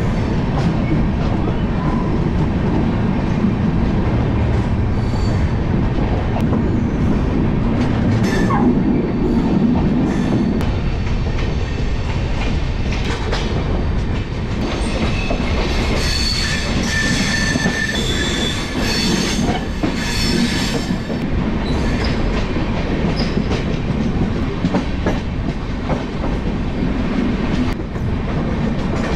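Train running on the track: a steady rumble with wheel clatter, and a high metallic squeal from the wheels for several seconds around the middle.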